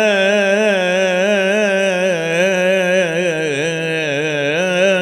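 A man's voice reciting the Quran in Arabic in melodic tajwīd chant, drawing out the word 'jā'a' in one long unbroken held note with slow wavering ornaments.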